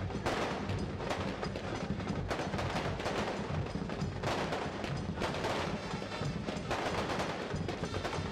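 A long string of firecrackers going off in rapid, irregular cracks and bangs, over loud music.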